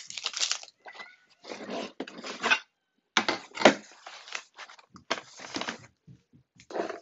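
Cardboard box of glass mirror tiles being handled and slid across a workbench, with a mirror tile set down: about four short scraping, rustling bursts with pauses between.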